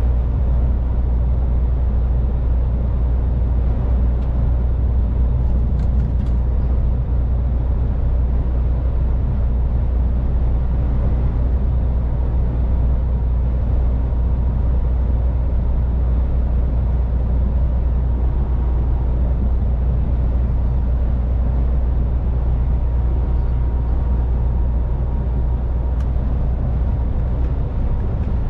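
MAN truck's diesel engine and tyre noise on the road, a steady low drone that holds the same level and pitch throughout.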